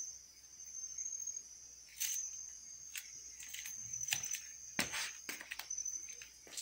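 Crickets chirping steadily in a continuous high-pitched trill, with a scatter of short clicks and knocks, the loudest about four to five seconds in.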